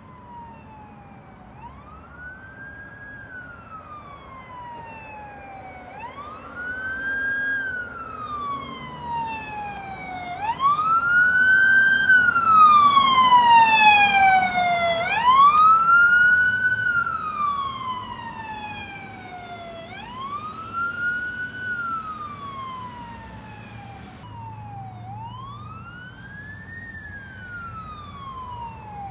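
Electronic wail siren on a fire battalion chief's command SUV, rising and falling in pitch every four to five seconds. It grows loud as the vehicle drives past about midway, then fades, still wailing near the end.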